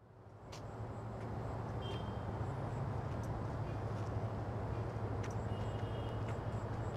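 Outdoor ambience fading in over about a second: a steady low rumble like distant traffic, with a few short, faint high chirps and ticks scattered through it.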